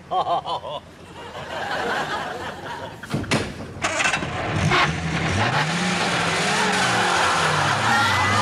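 Ford Anglia Super's four-cylinder engine running and revved, its pitch rising and falling again and again as the car pulls away, with a couple of sharp knocks about three seconds in.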